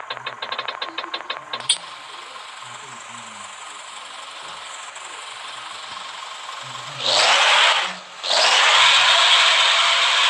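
Three-trumpet air horn being tested. A rapid mechanical clicking stops with a sharp click under two seconds in, then air hisses steadily. About seven seconds in come two loud blasts of rushing air, the second after a brief break and lasting longer, with no clear horn tone.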